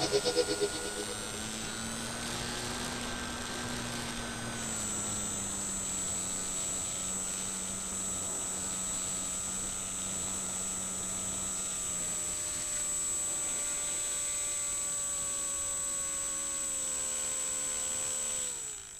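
An RC plane's small motor whines steadily, heard through the onboard mini camera. Its pitch drifts slowly lower over the last several seconds, then falls steeply and cuts out at the very end as the motor spools down.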